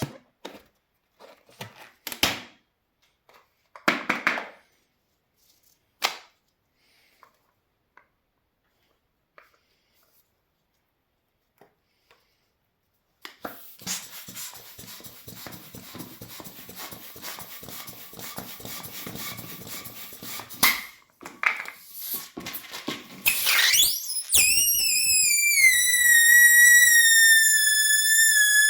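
Rubber balloon being handled, with scattered brief squeaks and rubs, then from about 13 s in a rattling rush of air through the balloon's neck. Near the end it turns into a loud, steady, high-pitched squeal as air escapes through the stretched neck.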